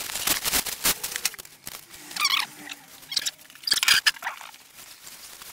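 Rustling and crinkling of the synthetic sleeping bag's nylon shell and its nylon transport sack as the bag is pulled out of the sack and unrolled. There are two short squeaky rubs of fabric, about two seconds in and again near four seconds.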